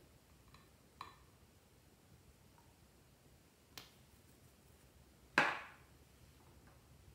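Sparse clicks of a nail polish bottle and its brush cap being handled: a light clink about a second in, a sharp tick near the middle, and a louder clack with a short ring about five seconds in as the bottle is set down.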